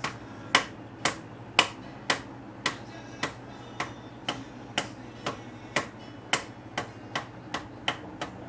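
Repeated light metallic taps, about two a second and uneven in strength. A tool is tapping on the timing-chain parts of a Chrysler 4.7 engine as a tap test to seat the cam sprocket.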